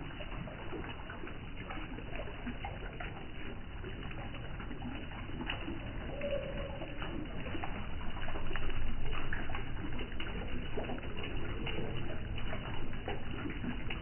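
Water running from a hose through a small masonry bird waterfall, a steady trickle, with doves cooing over it; it grows louder from about eight seconds in.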